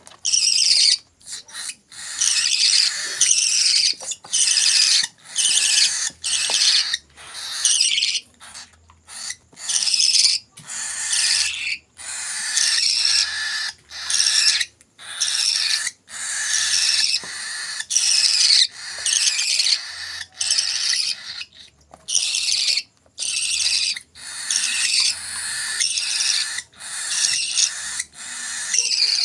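Hand-fed baby parrot chicks giving rasping, high-pitched food-begging calls over and over, each lasting about a second, with short breaks between them.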